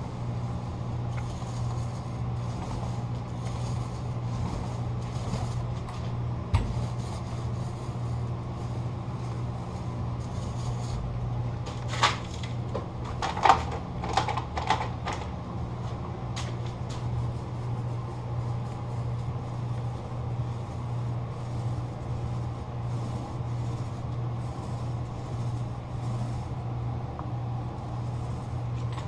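Steady low machine hum, with a few sharp knocks and clatters, a single one about a quarter of the way in and a cluster around the middle.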